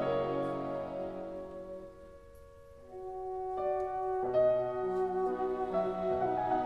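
Slow classical music for orchestra and piano. Held chords fade almost away about two seconds in, then soft new chords enter near three seconds and build again.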